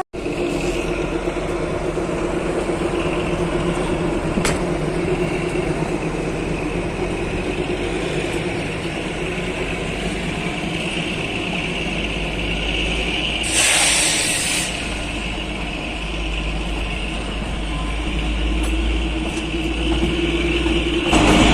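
Narrow-gauge toy train running along the line: a steady rumble of the coach with a low hum, and a brief hiss about halfway through.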